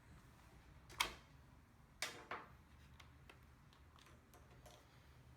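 A few sharp clicks and taps of hard plastic and small tools being handled: one about a second in, another at two seconds and a third just after, with fainter ticks between.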